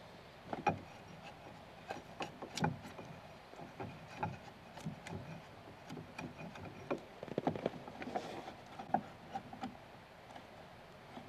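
Hand chisel paring and scraping wood out of a mortice cut into a log, with irregular clicks and knocks as the blade catches and chips break away.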